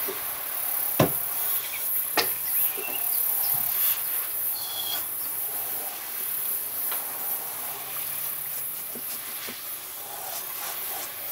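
Paintbrush working on a sheet of paper fixed to a wall, with two sharp knocks about a second and two seconds in and a few lighter ticks, over a steady high-pitched hiss.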